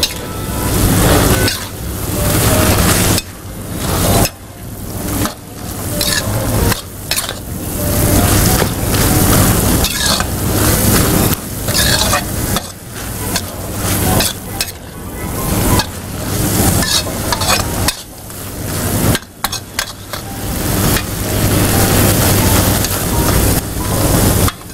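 A spoon stirring and scraping drumstick pieces in coconut masala around a brass kadai over a gas flame, with the curry sizzling. The stirring comes in repeated strokes, roughly every one to two seconds.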